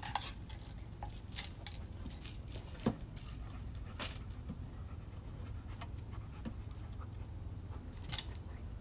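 A dog moving about close by, its collar hardware jingling, with scattered light clicks and rustles, sharper ones about three, four and eight seconds in, over a steady low rumble.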